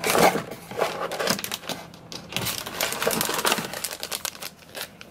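Plastic bait packages crinkling and rustling as a hand digs through a cardboard tackle subscription box: a quick run of small clicks and crackles, busiest in the first three seconds or so and thinning out toward the end.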